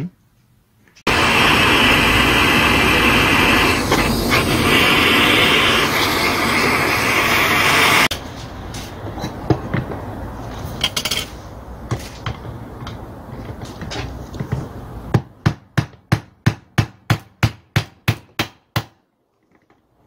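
A loud steady noise of unclear source for about seven seconds, then light metal clinks and handling. Near the end comes a run of about a dozen sharp hammer blows on a screwdriver used as a punch, about three a second, knocking a bearing out of a demolition hammer part clamped in a vise.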